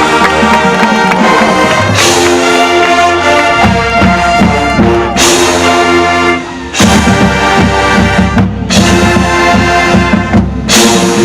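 High school marching band playing loudly: the brass holds big chords over drums, with cymbal crashes about two seconds in, about five seconds in and near the end, and a short drop in the sound about six and a half seconds in.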